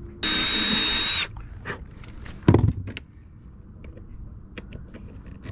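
Cordless drill running for about a second with a steady high whine, boring a pilot hole into a fiberglass cabin side. About two and a half seconds in comes a single short thump.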